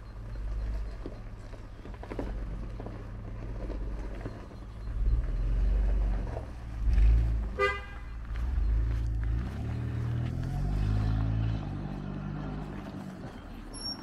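An SUV's engine running low and steady as it manoeuvres, with one short horn toot about seven and a half seconds in. The engine note then rises as the car accelerates away, fading near the end.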